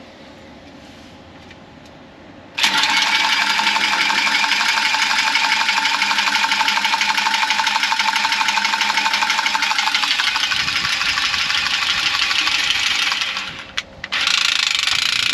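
Milwaukee cordless copper tubing cutter whirring as it spins around and cuts through a copper refrigerant line. It starts suddenly about two and a half seconds in and runs steadily with a fast, even pulsing for about eleven seconds, stops briefly, then runs again near the end.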